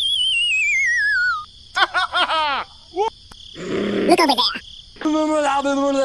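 Edited-in sound effects: a wavering whistle sliding steadily down in pitch over the first second and a half, then bursts of quick squeaky chirps and high, voice-like calls.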